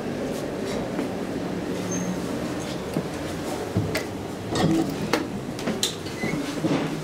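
Elevator car buttons clicking and the lift's hinged glazed landing door swinging shut, a run of clicks and knocks in the second half, the loudest knock near the end, over a steady background hum.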